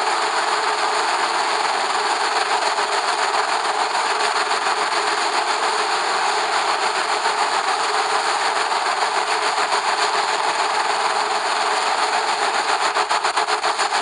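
A steady rushing noise, even and unbroken, with no calls or separate sounds standing out.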